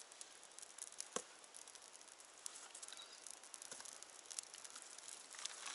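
Faint, irregular crackling of dry grass tinder smouldering and catching in a campfire ring, with one sharper click about a second in.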